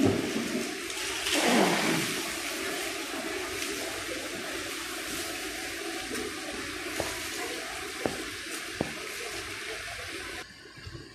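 Steady rushing of running water, with a brief whoosh early on and a few faint clicks. It cuts off abruptly about ten and a half seconds in.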